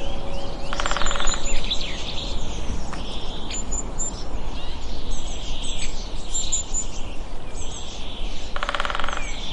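Several small birds chirping and twittering in quick, overlapping calls, with a buzzy rattling call about a second in and again near the end, over a steady outdoor background noise.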